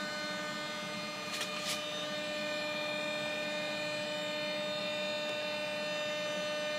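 JetCat P80SE model jet turbine in its start sequence, with a steady electric whine from its starter and fuel pump motors and two sharp clicks about a second and a half in. It is a failed start: the ECU reads no RPM, and the owner suspects the RPM sensor or its cable.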